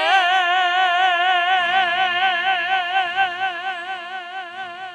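A singer holding one long final note with a steady, even vibrato at the close of a Chinese folk-song duet. Faint low accompaniment comes in under it about a second and a half in.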